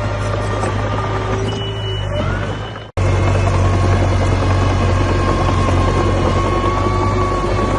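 Komatsu D21A bulldozer's diesel engine running steadily, a low drone with faint thin whining tones above it. The sound cuts out for an instant about three seconds in and comes back slightly louder.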